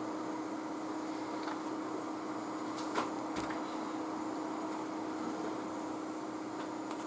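Hot air rework gun blowing steadily, a continuous rushing hiss with a low steady hum, while reflowing a BGA chip. A single light click about three seconds in.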